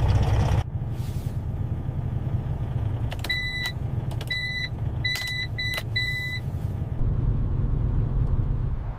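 Steady low rumble of a truck's engine and road noise. In the middle comes a run of five short electronic beeps at one pitch.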